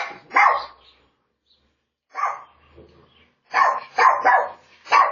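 A dog barking in short, sharp barks: two near the start, a pause, one bark, then a quick run of about four barks near the end.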